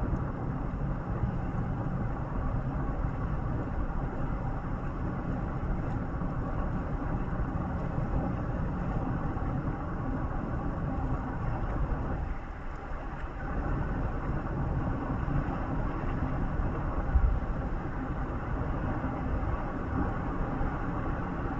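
Steady low rumble of a moving road vehicle, heard while travelling, easing briefly about twelve seconds in.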